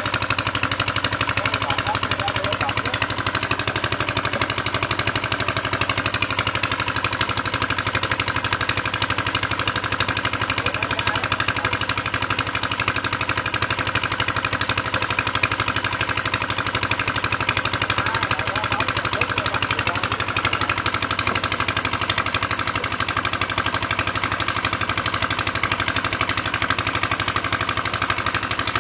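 Small engine idling steadily, an even rapid chugging that does not change.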